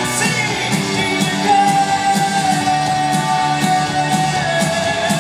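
Rock band playing live, with steady drum hits, guitars and a singer holding long notes.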